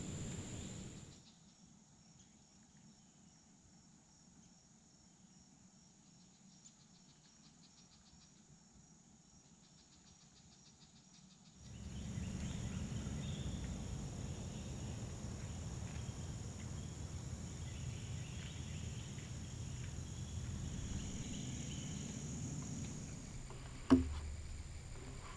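Insects trilling steadily in the woods, a continuous high note. The background drops much quieter for about ten seconds early on, then returns with a low steady rumble underneath, and there is a single sharp knock near the end.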